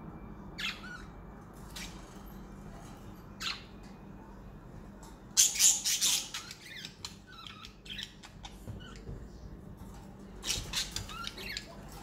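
Pet budgerigars giving short, sharp chirps and squawks, with a loud cluster of calls about halfway through and another near the end.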